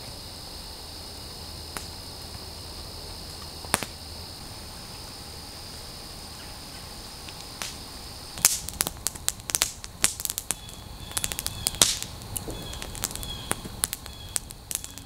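A steady high-pitched insect chorus with a few isolated clicks. About eight seconds in it gives way to a wood campfire crackling, with many sharp pops and snaps.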